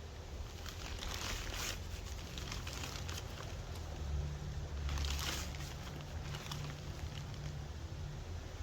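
Rustling and crinkling from hands handling garden material, in two short bursts about a second in and again about five seconds in, over a low hum of distant traffic.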